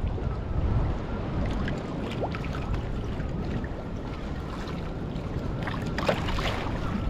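Wind rumbling on the microphone and choppy seawater slapping against a small fishing boat's hull, with a louder splash about six seconds in.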